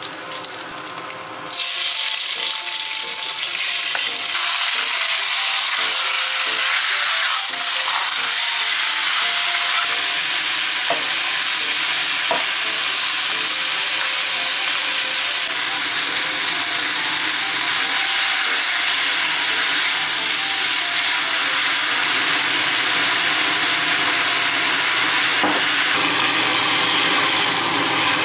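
Food frying in smoking-hot oil in a cast iron pot: first ginger slices, then chunks of pork that are stirred with a spatula. The sizzle jumps much louder about one and a half seconds in and then holds steady.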